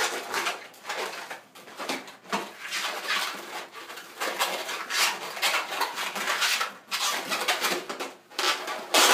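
Latex twisting balloons (260s) squeaking and rubbing against each other and against the hands as they are twisted and handled, in an irregular run of squeaks.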